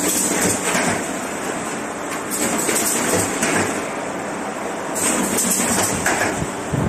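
Automatic cardboard partition assembler machine running: a dense, steady mechanical clatter with stretches of high hiss that come and go every second or two.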